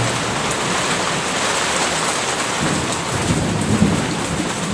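Heavy rain pouring down steadily, with a low rumble of thunder building in the second half.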